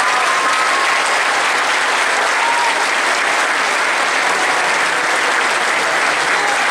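Audience applauding, a dense, even clapping.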